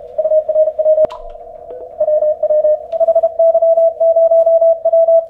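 Morse code (CW) tone from an Icom IC-7300 transceiver, keyed in quick dots and dashes with a short pause about a second in. A steady lower tone and the hiss of the receiver's narrow CW filter run underneath, and there is a sharp click about a second in.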